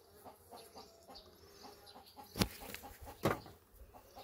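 Chickens clucking faintly in the background, with two sharp knocks a little under a second apart about halfway through.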